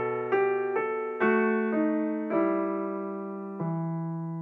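Background piano music: single notes struck about every half second, slowing to a last note about three and a half seconds in that is left to ring and fade.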